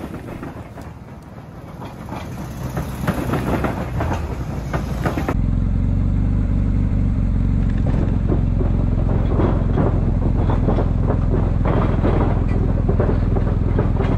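Motorcycle running with a continuous clattering rattle. About five seconds in, the sound cuts abruptly to a louder, steady low engine hum under the rattle.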